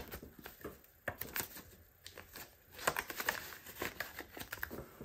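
Hands handling laminated cash envelopes and paper bills: papery rustling and crinkling with scattered light taps and clicks, busiest about a second in and again around three seconds in.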